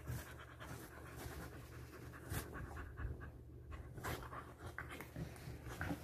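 A dog panting in quick, short breaths with its mouth open, with the scuffle and rustle of two dogs wrestling on a bedspread.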